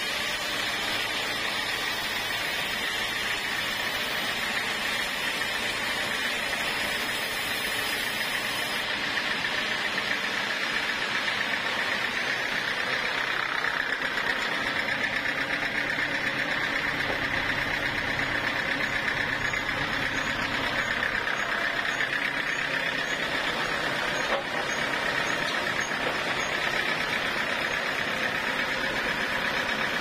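Band sawmill machinery running steadily, a continuous mechanical hum and hiss, with one short knock about 24 seconds in.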